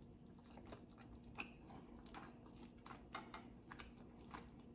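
Faint chewing of a mouthful of rice, beans and stewed beef: soft, irregular wet mouth clicks, a few a second. A faint steady hum runs underneath.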